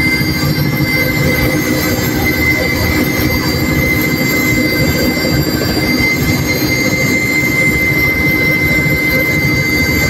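Helicopter turbine engine and rotor heard from inside the cabin: a steady high whine over dense, unbroken low noise.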